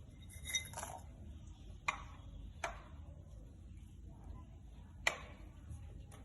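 Ingredients and a spoon going into a mixer grinder jar: about five light clinks and knocks spread out, the first one near the start with a short ringing tone.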